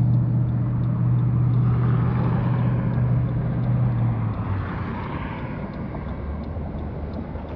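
A motor vehicle's engine running with a steady low hum, which drops in pitch and eases off about four and a half seconds in, over road noise that swells twice.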